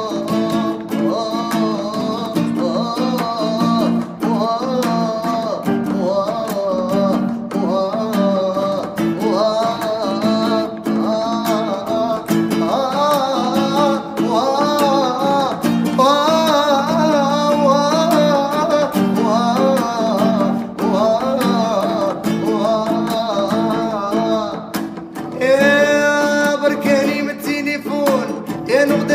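A man singing an Arabic song with wavering, ornamented phrases over his own strummed acoustic guitar. Near the end he holds one louder, ringing note.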